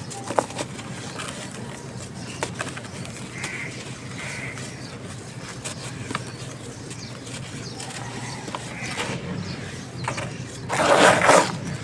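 Crumbly white stones (chalk-like) being crushed and broken by hand, with small scattered cracks and one loud crunching crumble near the end.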